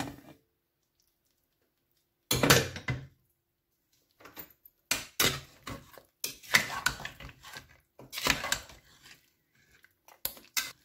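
Metal ladle clinking and scraping against the inside of an aluminium pressure cooker while stirring cooked mutton, in a string of irregular knocks. It begins about two seconds in with a louder metal clatter.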